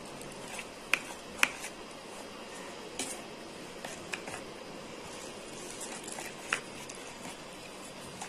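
A metal spoon stirring flour and hot water into dough in a plastic bowl: soft scraping with scattered sharp clicks of the spoon against the bowl, the loudest about one and one and a half seconds in.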